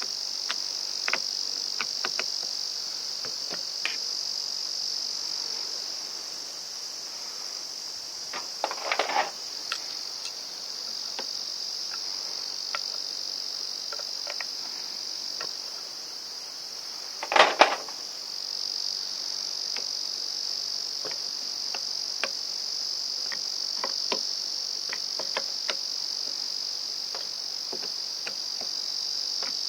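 A steady, high-pitched insect chorus of crickets or cicadas runs throughout. Over it come scattered light clicks and knocks from parts being handled and fitted during reassembly of a cordless brush cutter, with a louder clatter about 9 seconds in and the loudest knock at about 17 seconds.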